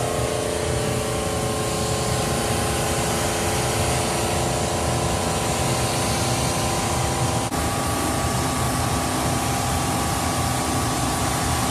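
Pressure washer spraying a steady jet of water against the steel dump box of a Volvo A35 articulated rock wagon, a constant hiss over a steady machine hum.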